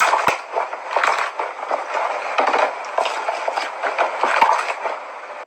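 Slime being squeezed and worked by hand, with a continuous run of crackling, clicking and squishing noises.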